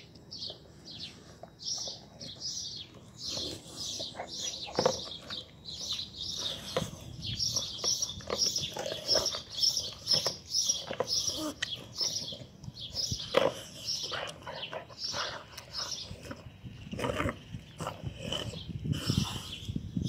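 A dog eating chunks of bread from a plastic bowl, with irregular chewing clicks and smacks. Small birds chirp rapidly and steadily in the background.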